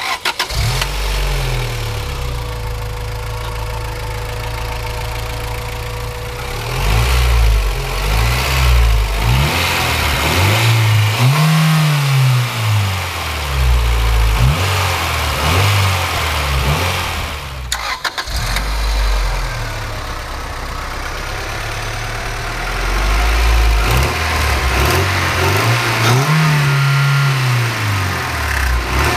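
2001 Acura Integra GS-R's 1.8-litre DOHC VTEC four-cylinder starting and idling, then free-revved in neutral, several rising-and-falling revs in a row, breathing through the stock airbox intake. After a break about 18 seconds in, the same engine idles and is revved again, now breathing through a 3-inch short ram intake with an open cone filter.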